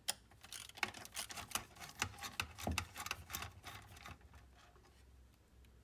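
Light, irregular clicking and ticking of a quarter-inch nut driver turning out a screw in the metal frame of a Kodak carousel slide projector. The clicks come several a second and die away about four seconds in.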